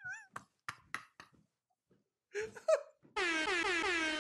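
A brief soft laugh. About three seconds in, a loud, long horn-like tone starts suddenly. It dips slightly in pitch and then holds steady.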